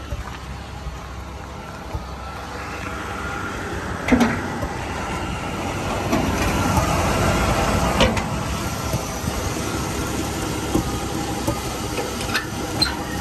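1984 Jeep CJ7's engine idling steadily, getting louder as the hood is approached. Sharp clunks about four seconds in and again about eight seconds in come from the hood being unlatched and raised.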